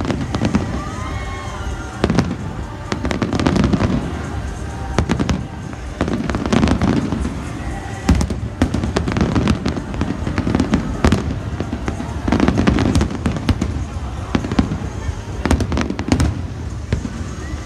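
Fireworks display: a rapid, continuous string of sharp bangs and crackles, with deeper booms every second or two.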